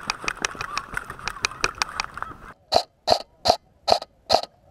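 Running footsteps on dry ground with gear rattling, about five steps a second, then the runner stops and an airsoft rifle fires six single shots in quick even succession, about two or three a second.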